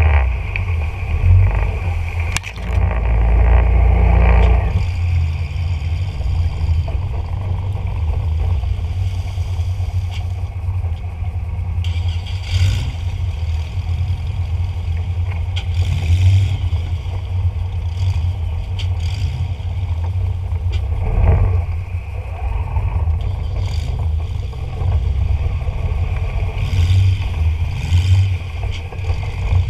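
Marsh boat engines running hard and steadily as the boats push up a narrow, overgrown ditch. The low engine sound is loudest for the first four or five seconds, then eases to a steadier, lower run.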